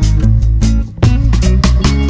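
Background music: guitar over bass and drums with a steady beat.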